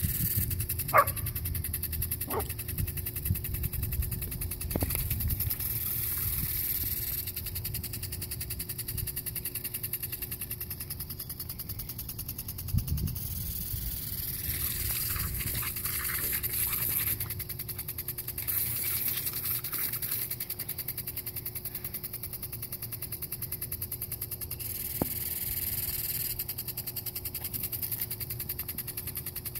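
A dog gives a few short yips while playing in a lawn sprinkler's spray, two close together about a second in and one more near the end. Behind it the hiss of the sprinkler's water jet swells and fades every few seconds as the jet sweeps around.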